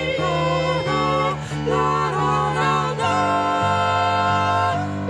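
A cappella choral singing in several parts, every part sung and layered by one singer, moving through sustained chords and settling on a long held chord that stops shortly before the end.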